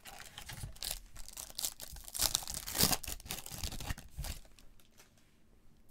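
Foil wrapper of a Panini Donruss basketball hobby pack crinkling and being torn open, loudest about two to three seconds in and stopping a little after four seconds.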